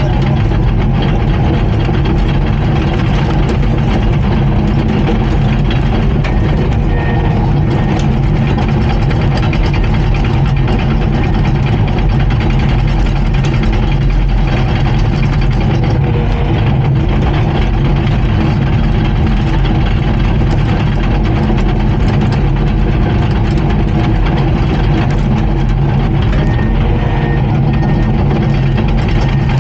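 Komatsu D39PX bulldozer's diesel engine running steadily.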